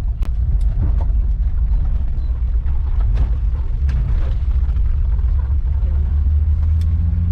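Car driving, a steady low road rumble, with a few light knocks and clicks.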